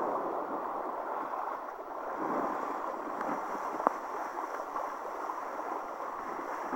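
Steady rush of wind and water as a kiteboard skims across choppy water, with one sharp click about four seconds in.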